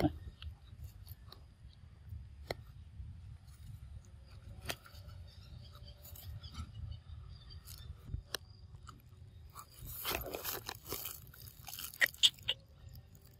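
Baby macaque biting and chewing a mango held out in a hand: scattered crunchy bites and clicks, loudest and most frequent near the end.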